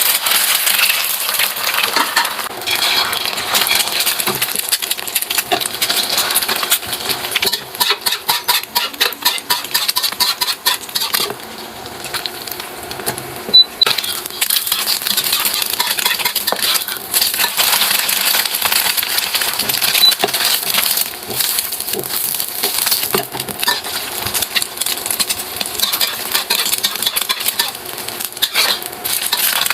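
Continuous dense clicking and rattling of small hard objects, with a sharp louder knock about halfway through.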